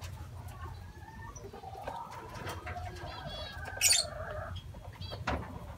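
Lovebirds chirping, with two brief sharp high-pitched calls, one about four seconds in and a quieter one near the end, over a low steady hum.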